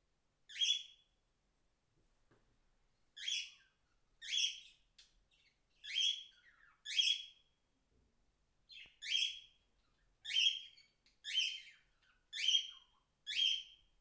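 Cockatiel giving about ten short, high-pitched calls, roughly one a second, with a longer pause after the first call and another near the middle.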